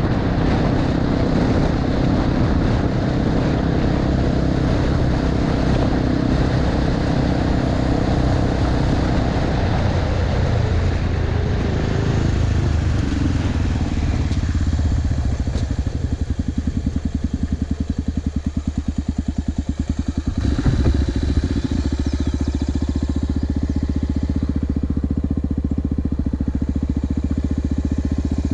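Honda XR250 Tornado's single-cylinder four-stroke engine under way on a gravel road, with wind and gravel rush over the engine; about halfway through the rushing fades as the bike slows, and the engine settles to a steady, slower beat, with a brief blip of throttle a little later.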